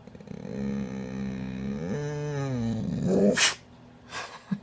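Dog making a long, wavering, growl-like vocalization rather than a bark, with a short break in the middle. About three and a half seconds in come a sharp, loud huff and then a fainter one.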